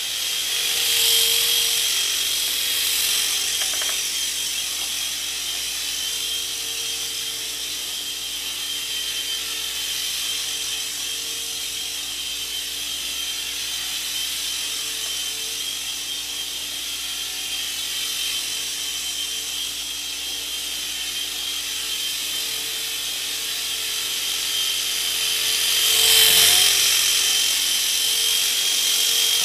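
Ecoman Microgear Schweizer micro RC helicopter in flight, its small electric motors and rotors giving a steady high-pitched whir that swells louder about a second in and again near the end as it passes close. It is running on full power again with its negative battery wire re-soldered.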